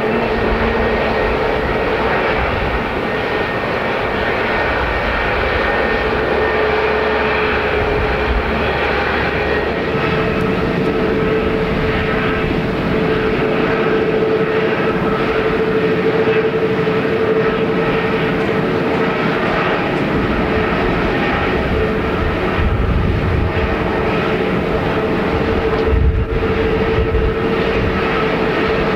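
Jet airliner engines running at low power, a steady rushing noise with a held whining tone.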